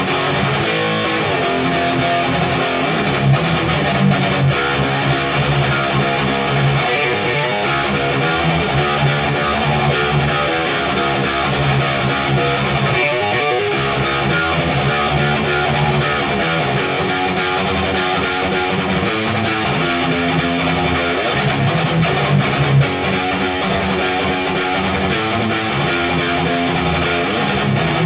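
High-gain distorted electric guitar playing metal riffs through a Randall Diavlo RD20 Fortin-voiced tube amp, cranked to about 40% volume. The guitar is an Ibanez RGA42FM with a Seymour Duncan Omega bridge humbucker.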